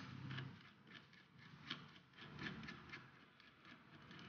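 Faint, scattered light clicks and handling of metal parts as the nose piece is threaded by hand onto a pneumatic nut rivet setter.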